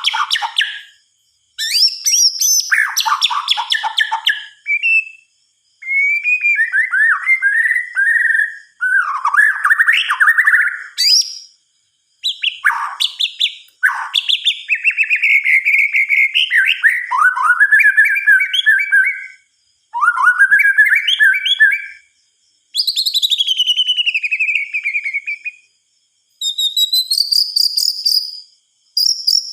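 White-rumped shama (murai batu) singing: a run of loud, varied whistled phrases, many sliding down in pitch, each lasting one to a few seconds with short breaks between them.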